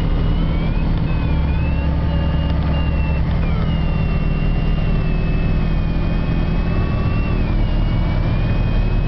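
Light aircraft engine droning steadily, heard from inside the cockpit, with a thin high whine that drifts up and down in pitch.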